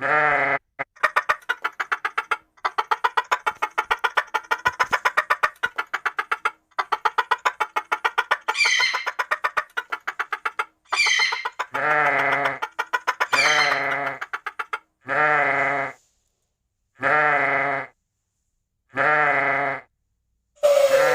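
Farm animals bleating: long runs of rapid, wavering bleats, then three separate bleats of about a second each with short silences between them near the end.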